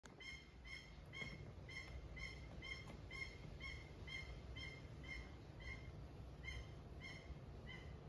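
Cockatiel giving a short, high call over and over in a steady rhythm, about two calls a second.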